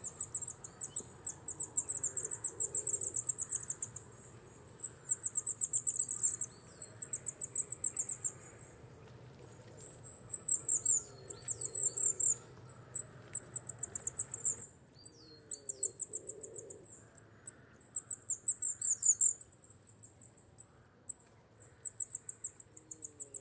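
Coal tit giving bursts of very high, rapidly repeated thin notes, each burst lasting a second or two with short pauses between, and a few thin downslurred calls mixed in.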